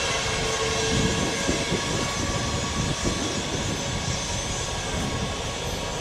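Boeing 737 MAX 8's CFM LEAP-1B turbofans running as the airliner moves along the runway: a steady jet whine over a low rumble.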